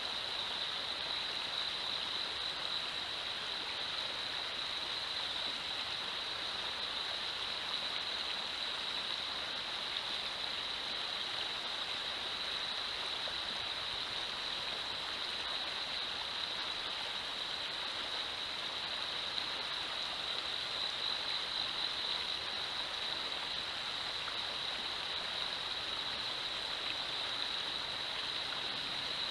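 Shallow river riffle rushing steadily over rocks, with a steady high-pitched whine running through it.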